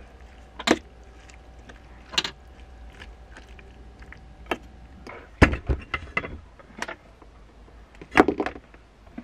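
A metal fork clinking and scraping against an enamel bowl as sliced beef is stirred in its marinade, a sharp clink every second or two with a quicker run of clinks about halfway through. Near the end, a short clatter as the lid of a small electric cooking pot is handled.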